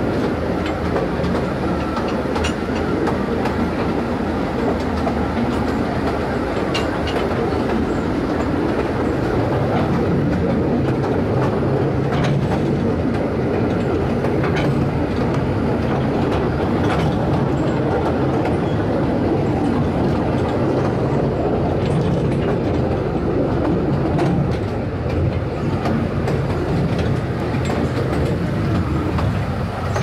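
Taipingshan Bong Bong train, a small diesel narrow-gauge forest train, running steadily along the track, heard from aboard a carriage: a continuous rumble of motor and wheels with scattered clacks from the rails.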